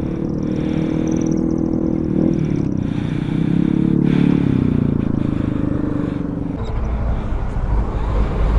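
Motor vehicle engine running steadily, its pitch drifting up and down, with a deep low rumble taking over about six and a half seconds in.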